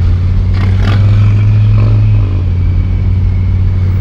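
Turbocharged LS V8 pulling from a standstill at about 2,000 RPM through a Hooker Aerochamber muffler, heard from inside the cabin as a steady deep drone. A faint high whistle rides above it from about a second in: the turbo spooling.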